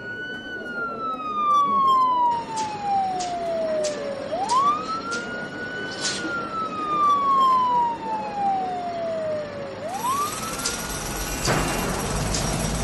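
A siren wailing in slow cycles, each jumping up in pitch and then sliding down for about four seconds, repeated three times, with sharp clicks and knocks in between. Near the end a loud, continuous rattling noise starts suddenly and drowns it out.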